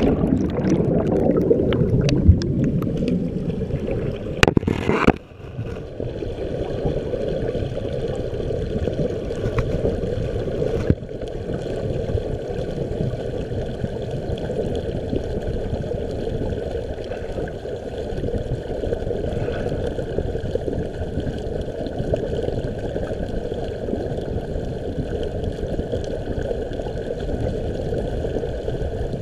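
Splashing and churning water for the first few seconds, then from about five seconds in a steady, muffled rumble of turbulent water heard from underwater at the base of a waterfall, picked up through a GoPro's housing.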